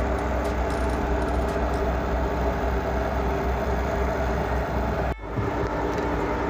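Steady engine drone with a strong low hum and a few held tones. It briefly drops out about five seconds in and then carries on.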